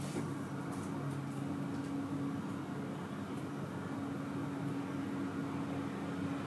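Steady low hum with a faint hiss: the room tone of a studio, with a few faint ticks in the first couple of seconds.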